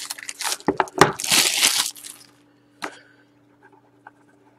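Cellophane shrink wrap crinkling as it is torn and crumpled off a trading-card box, loudest about a second in. A single sharp click follows shortly after.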